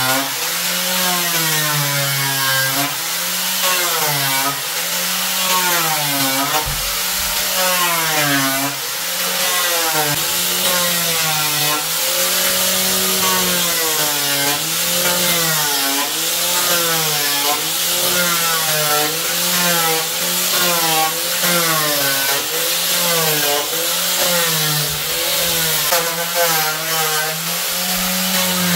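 Handheld electric power tool spinning a sanding disc against wooden wall planks. Its motor whine rises and falls every second or two as the disc is pressed onto the wood and eased off.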